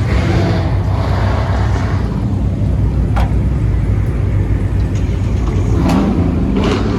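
V8 car engine running with a steady deep exhaust rumble, with a sharp click about three seconds in and a short rise in pitch near the end.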